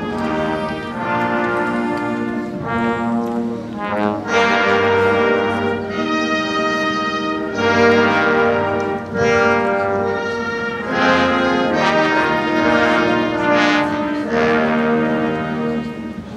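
Brass ensemble music: trumpets and trombones playing slow, held chords.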